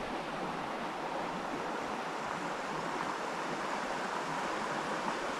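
Steady rushing of a fast-flowing mountain river.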